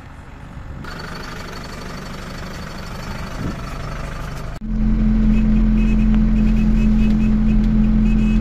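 Dala Dala minibus engine running while passengers climb aboard. About four and a half seconds in it changes abruptly to a loud, steady low drone as the bus drives along, heard from inside the passenger compartment.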